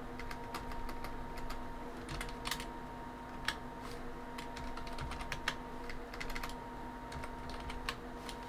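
Typing on a computer keyboard: single keystrokes clicking slowly and irregularly, with short pauses between them.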